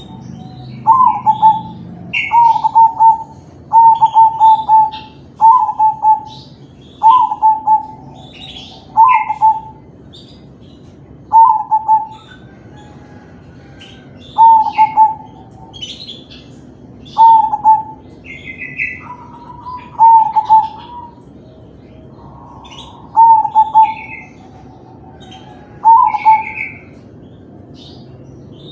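Crossbred zebra doves (perkutut) cooing: a short phrase of rolling notes repeated every one and a half to three seconds, with brief higher chirps in between.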